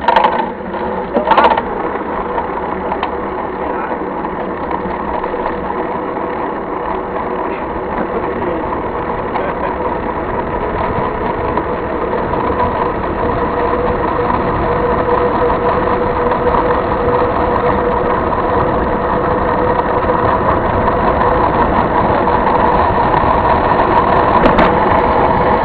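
Motorcycle engine running at a steady speed, growing gradually louder.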